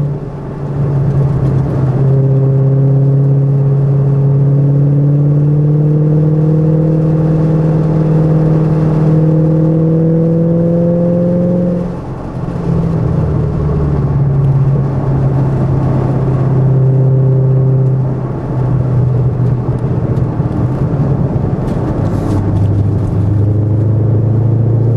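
Shelby GT500 V8 engine heard from inside the cabin at speed on a race track, its pitch climbing slowly under sustained throttle, then dropping sharply about halfway through as the driver lifts off. It runs steadier, lifts again a little later, and pulls once more near the end, over steady wind and tyre noise.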